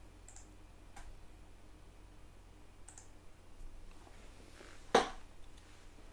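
A few light computer-mouse clicks, then one sharp, much louder click or tap about five seconds in.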